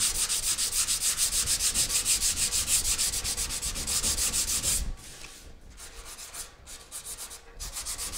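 Sandpaper hand-sanding hardened primer on a car body panel, rubbed in quick, even back-and-forth strokes about five a second. About five seconds in the strokes go lighter and quieter, then pick up again near the end.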